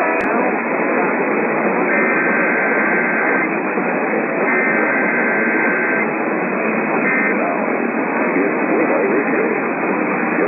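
Static-laden radio reception with faint speech under the noise. Three bursts of Emergency Alert System SAME digital data tones cut through it: two of about a second and a half, and a short one near the end. A single click comes right at the start.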